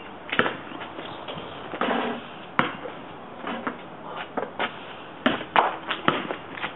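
A basketball bouncing on an asphalt driveway: sharp single bounces spaced a second or two apart, then several in quick succession near the end.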